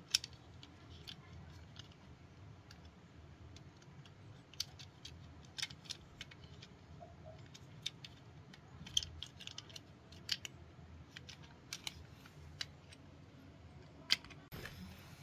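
Scattered light clicks and taps of a toy being handled, at irregular intervals over a faint steady low hum.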